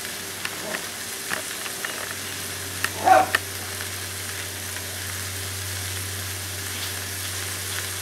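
Beef chunks sautéing with bacon and vegetables in a cast-iron Dutch oven, a steady sizzle with a few light clicks and one louder brief clatter about three seconds in.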